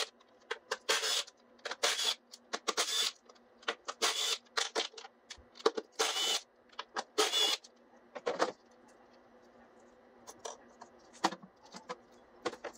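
Hand tools at work on a car engine while its top cover is taken off: short clicking, scraping strokes about once a second. After about eight seconds they thin to scattered light clicks.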